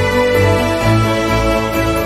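Background music: a steady instrumental piece with sustained pitched notes over changing bass notes.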